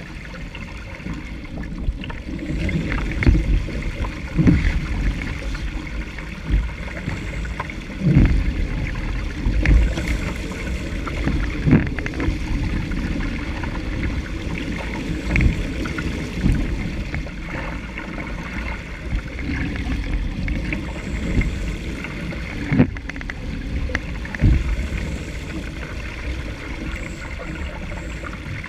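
Water rushing and splashing along the hull of a Laser sailing dinghy moving fast through choppy water, with irregular thuds every few seconds as the hull meets waves.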